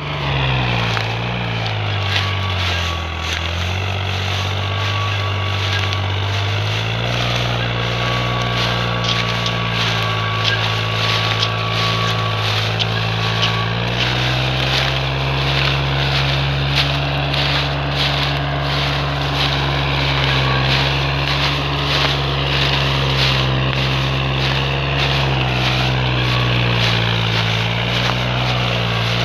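New Holland tractor's diesel engine labouring as it pulls a trolley heavily loaded with sugarcane. The engine note sags for a few seconds near the start, then picks up, rises again about halfway through and holds steady.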